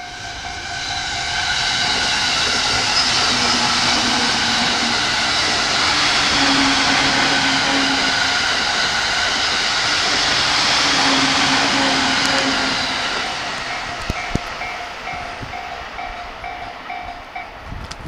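A 15-car JR East E233-series electric commuter train (E233 plus E231 sets) passes close by: a steady rush of wheels on rail with a motor hum, building over the first couple of seconds and fading from about 13 s. A level-crossing warning bell rings in regular pulses, plain at the start and again over the last few seconds.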